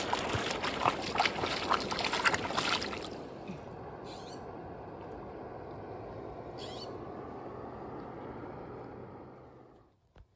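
A dog splashing as it runs through shallow river water, lots of quick splashes for about three seconds. It then gives way to a softer, steady rush of the river with a couple of brief splashes, and fades out near the end.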